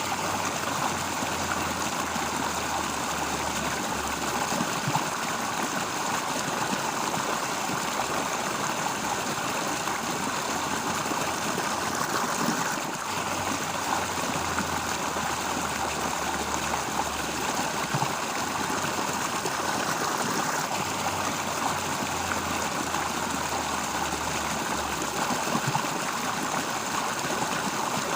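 Steady rush of flowing water from a stream, with a low hum that fades in and out underneath.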